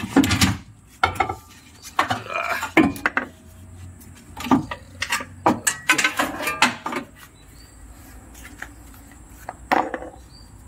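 Irregular metallic clanks and knocks as a steering rack and tools are handled, coming in clusters for the first several seconds, then one more knock near the end.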